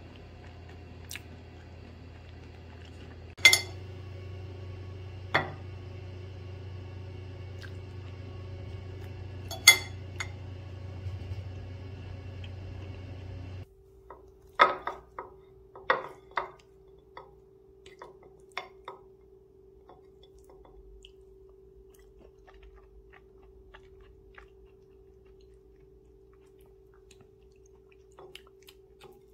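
Metal fork clinking and scraping against a ceramic dessert plate while cutting soft cake: a scattering of sharp clinks, several close together after a cut about halfway through. A steady low hum runs underneath and gives way to a thin steady tone after the cut.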